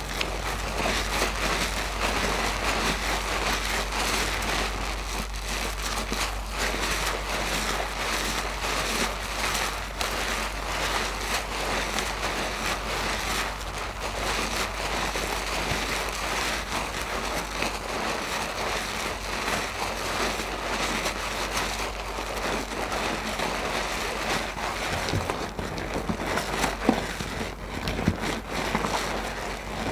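A soap-lathered mesh bath loofah being squeezed and kneaded by hand in thick foam: steady wet squelching with a dense, fine crackle, and a few sharper squishes near the end.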